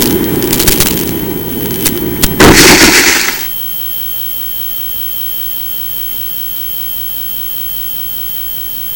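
Mini Skywalker RC foam plane landing in grass, heard from its onboard camera: a rushing flight noise with a few sharp clicks, then a loud scraping rush about two and a half seconds in as it touches down and slides through the grass. About a second later the noise cuts off, leaving a steady faint hiss and a thin high whine as the plane sits still.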